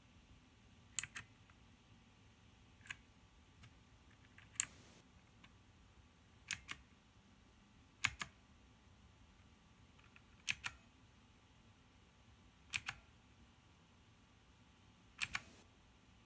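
Keys on a FELiCON 82-key mechanical keyboard pressed one at a time: a sharp click, usually followed quickly by a softer second click, about every two seconds.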